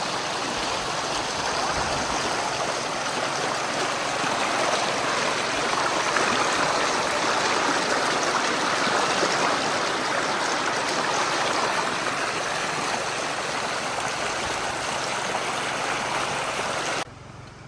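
Rocky stream rushing over rocks in a steady, loud flow; it cuts off abruptly near the end.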